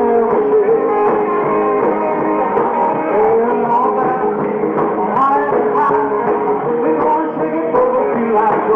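Live rock and roll band playing, with a male lead singer's voice over guitar and the band.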